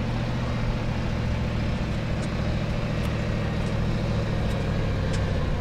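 Offroad buggy's engine running steadily at low revs as the buggy drives slowly, with no revving.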